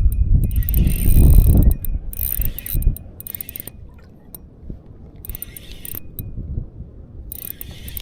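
Spinning reel (TD Black 2000) being wound as a hooked bream is played in. Gusts of wind buffet the microphone, heaviest in the first two seconds.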